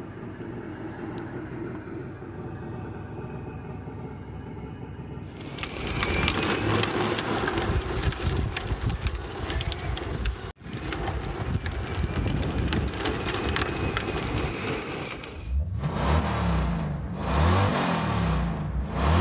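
Electric Power Wheels ride-on Mustang with an upgraded motor and gearbox driving on asphalt: motor whine with the rattle and crunch of hard plastic wheels on pavement, starting about five seconds in after a quieter stretch. Near the end, a louder engine-revving sound rises and falls several times.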